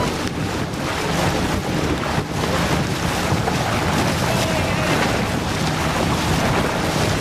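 Wind buffeting the microphone and water rushing past the hull of a motor launch under way, a loud steady noise.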